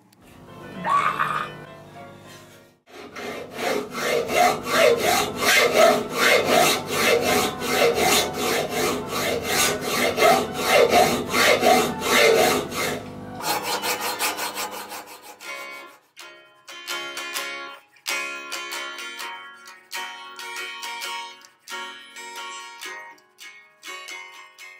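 Hand hacksaw cutting through steel angle bar in back-and-forth rasping strokes, mixed with background music.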